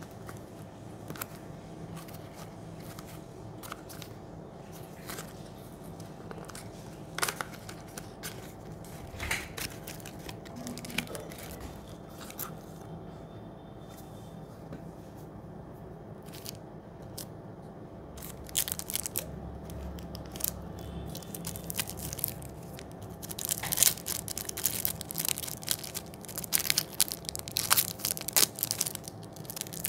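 Cardboard ice-cream box handled with scattered taps and scrapes. Then an ice-cream wrapper is unwrapped from a kulfi on a stick, crinkling and tearing in a dense crackle that grows louder over the second half.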